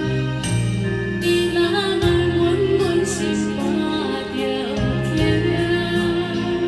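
A woman singing a Taiwanese Hokkien ballad into a microphone over a karaoke backing track with bass and keyboard.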